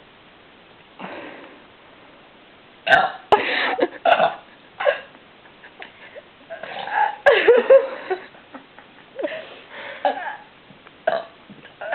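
A person burping repeatedly: a string of short burps starting about three seconds in, with a longer one in the middle.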